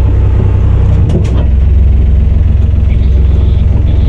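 The diesel engine of an enclosed lifeboat runs steadily, heard from inside its cabin while the boat manoeuvres. A couple of brief sharp clicks come about a second in.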